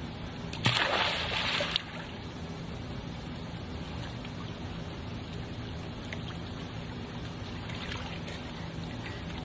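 A baby dropping into a swimming pool with a splash lasting about a second, near the start. After it, faint water sounds over a steady low hum as she swims.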